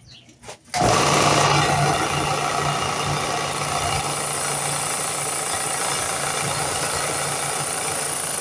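Electric shop power tool switched on suddenly about a second in, then running steadily with a constant motor hum under a rushing, grinding noise.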